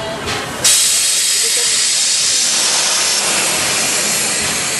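ČSD class 434.2 steam locomotive venting steam: a loud hiss breaks out suddenly about half a second in and carries on steadily, easing slightly.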